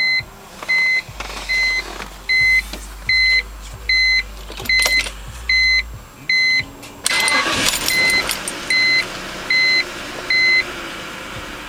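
Car warning chime beeping evenly, about once every 0.7 seconds. About seven seconds in, the BMW M52 straight-six cranks, catches and keeps running under the chime, which stops near the end.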